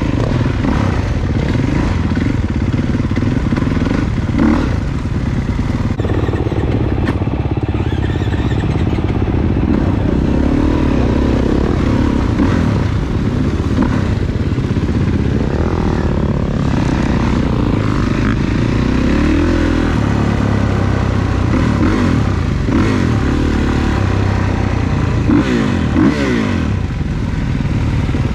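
Off-road dirt bike engine revving up and down, its pitch rising and falling repeatedly as the rider works the throttle on a trail ride.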